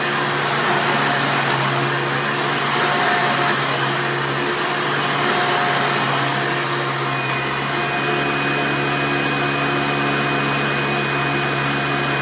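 1996 Hoover Runabout Supreme upright vacuum cleaner running steadily, its motor holding an even pitch under a broad rush of air. A thin high whine joins about halfway through.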